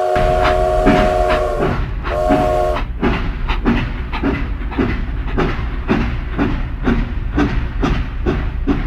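Toy train sound effect: a whistle sounds a chord for under two seconds, then gives a short second toot. It settles into steady rhythmic chugging, about three beats a second, over a low rumble.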